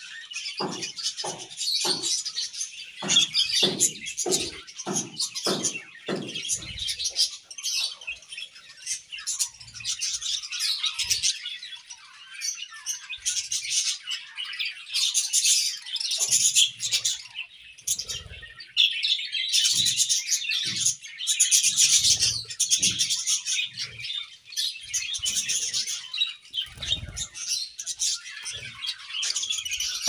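A flock of budgerigars chattering and chirping without pause, with bursts of wing flapping as they scramble in a bunch of leaves. A run of soft low thumps, about two a second, comes in the first six seconds.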